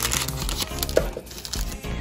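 Soft background music, with a clear plastic bag crinkling and rustling as hands pull a small camera battery out of it.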